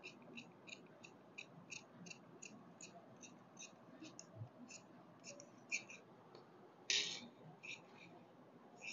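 Large tailor's scissors snipping through folded cloth in a steady run of short cuts, about three a second. There is one louder, longer sound about seven seconds in.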